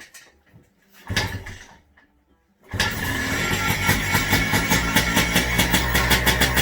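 2017 Beta 300RR two-stroke engine, just given a new top end, makes one brief start attempt about a second in that does not catch. At about two and a half seconds it fires and keeps running with a fast, even firing beat.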